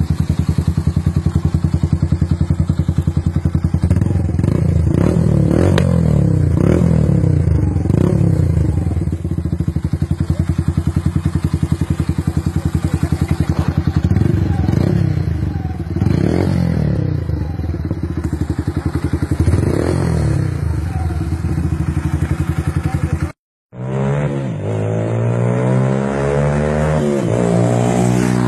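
Yamaha YBR 125's single-cylinder four-stroke engine idling with an even putter, blipped up in a series of quick throttle revs that fall straight back to idle. After a cut about 23 s in, a motorcycle engine runs with its pitch climbing steadily as it revs up.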